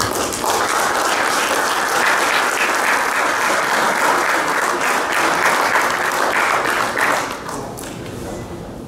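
Audience applauding, dying down about seven seconds in.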